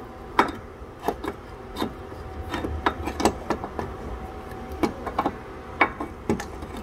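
Irregular knocks, clicks and scrapes of a replacement starter motor's metal housing bumping against the engine and mounting as it is worked into place by hand.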